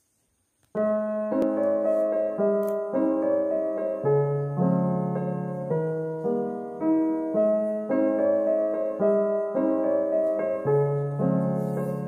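Soft background piano music begins about a second in, a slow melody over a low accompaniment, its notes changing every half second or so.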